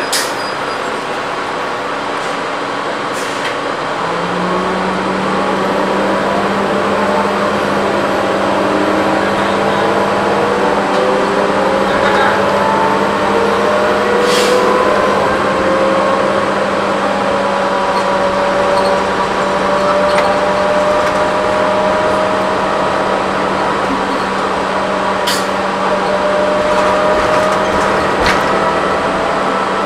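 Cabin sound of a 2008 New Flyer C40LFR transit bus under way, with its Cummins Westport ISL-G natural-gas engine and Allison B400R6 automatic transmission pulling. A steady hum comes in about four seconds in, and a whine rises slowly in pitch as the bus picks up speed. A few knocks and rattles come from the body.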